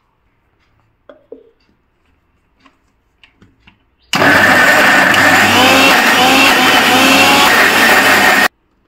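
Indian mixer-grinder (mixie) running at full speed, a steady loud whine as it grinds roasted pointed gourd, shrimp and green chillies into a paste in its steel jar. It starts abruptly about four seconds in and cuts off suddenly about four seconds later. Before it starts there are a few light knocks as the jar and lid are set in place.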